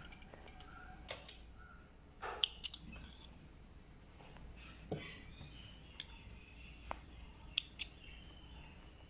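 Scattered light clicks and handling noises of cloth being moved at a sewing machine that is not running, with a few sharp snips of small scissors trimming thread near the end.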